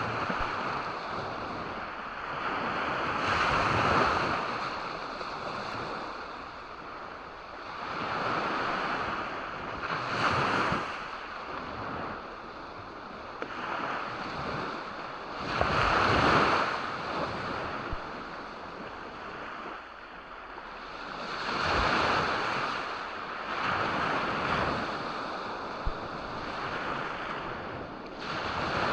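Sea waves breaking and washing up on a beach, rising and falling every few seconds; the largest swells come about 4, 10, 16 and 22 seconds in.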